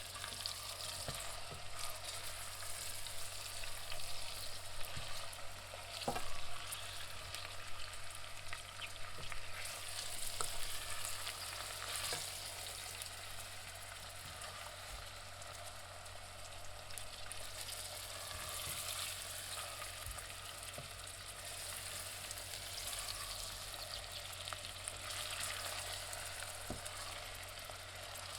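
Onions frying in hot oil: a steady sizzle with continual crackling and scattered sharper pops, a little louder in the first half.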